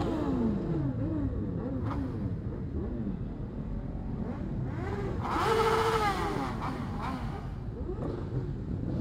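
A large pack of motorcycles running together, many engine notes rising and falling as riders rev and pull away. One louder, brighter rev about five seconds in.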